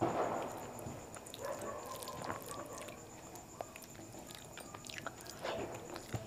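Close-up chewing and wet mouth sounds of a person eating rice mixed with kadhi by hand, with small clicks throughout and a brief louder noisy sound right at the start.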